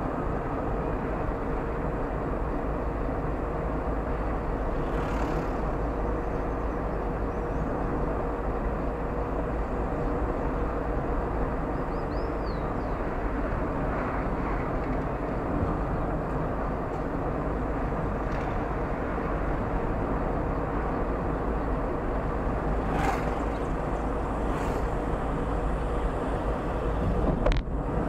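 A car driving steadily, its engine and tyre noise making a constant low rumble with a faint steady hum. A few brief knocks come through, the loudest near the end.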